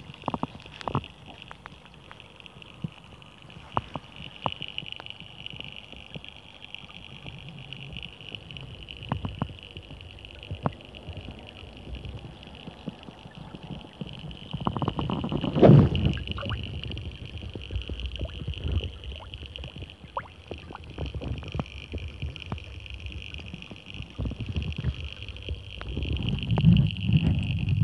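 Muffled sound of a garden pond heard from underwater, with the waterfall running: a steady high hiss with scattered small clicks and knocks, and a louder knock about 16 seconds in. A low steady hum comes in near the end.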